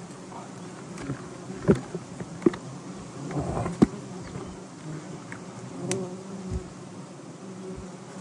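A swarm of honey bees buzzing with a steady hum, broken by a few sharp clicks or knocks about two, two and a half and four seconds in.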